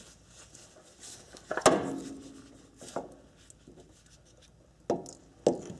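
A few sharp knocks and clicks as a loosened spin-on oil filter is unscrewed by hand and pulled off its engine mount. The loudest comes about a second and a half in and rings briefly; three smaller ones follow.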